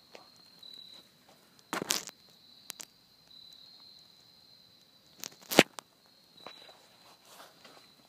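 Steady high-pitched drone of insects in woodland, broken by a few sharp crackles, like dry leaves or twigs crunching close by. The two loudest come about two seconds in and about five and a half seconds in, with smaller clicks between.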